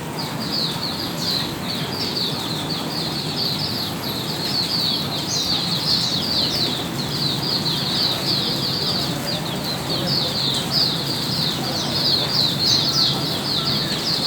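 White-eye (mata puteh) singing a long, fast, unbroken song of rapid down-slurred notes.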